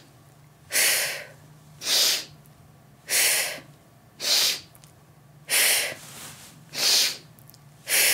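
A woman's quick, forceful breaths in a diaphragmatic (lower-rib) breathing exercise: sharp inhales through the nose into the belly and sharp exhales through the mouth. There are about seven in a row, a little over a second apart.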